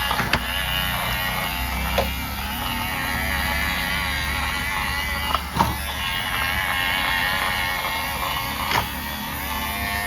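Small battery-powered toy motor running steadily with a whirring hum, with a few sharp clicks or knocks along the way.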